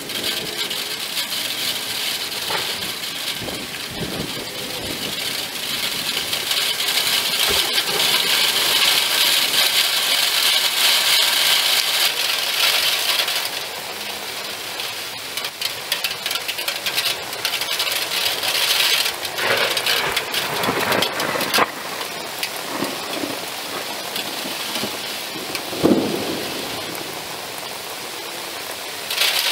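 Heavy rain pouring steadily, heaviest from about a fifth of the way in to a little before halfway, with a few sharp taps in the second half.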